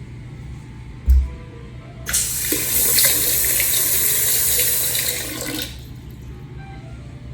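Automatic sensor faucet at a TOTO L270C washbasin running water into the basin for about three and a half seconds, starting and stopping abruptly as the sensor switches it on and off. A brief low thump comes about a second in.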